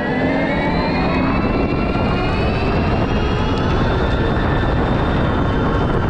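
Synthetic engine sound (AVAS) played by the EUC World app on an electric unicycle: a whine of several tones rising in pitch as the wheel speeds up, levelling off about four seconds in. A steady low wind rumble on the microphone runs under it.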